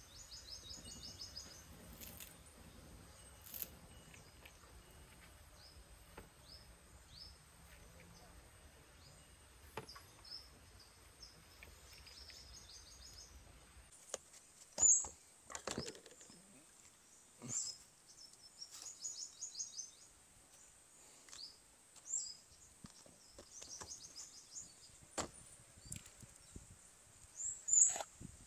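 Small birds chirping and trilling in short repeated calls, with light knocks, clicks and rustles of hands picking herb leaves and setting bowls and containers down on a bamboo table. The knocks and calls become sharper and more distinct from about halfway.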